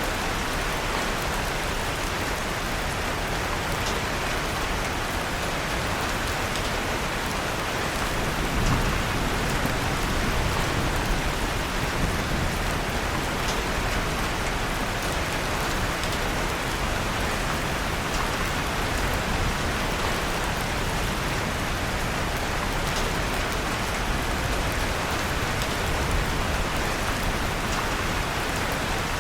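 Steady rain mixed with the soft crackle of a fireplace fire. A low rumble swells briefly about nine seconds in and fades a few seconds later.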